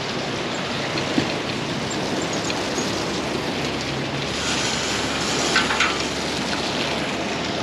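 Steady rushing spray of seawater from a pier's pumped saltwater hose.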